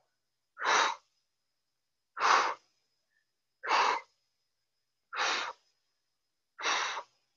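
A woman's short, forceful exhales through the mouth, five of them about a second and a half apart, one with each leg switch of a Pilates single-leg stretch.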